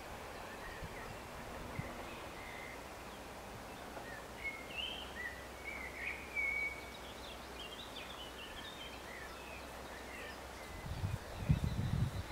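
Small birds chirping and calling over quiet rural ambience, busiest in the middle. Near the end comes a low, bumping rumble, the loudest sound here.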